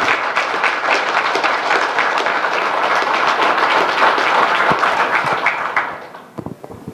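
Audience applauding, dense clapping that dies away about six seconds in, leaving a few scattered last claps.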